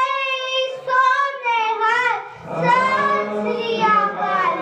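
A child singing long held notes with a wavering vibrato. About halfway through, lower adult voices join in and sing along.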